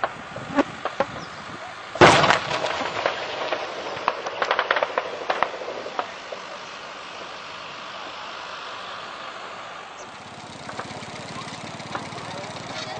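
A loud shell explosion about two seconds in, followed by about four seconds of sharp cracks and pops, then a steady background din.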